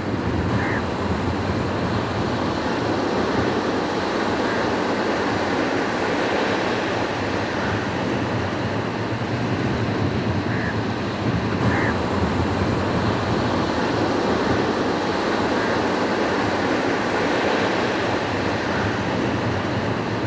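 Ocean surf washing steadily onto a sandy beach, an even rushing noise, with a few brief faint high chirps here and there.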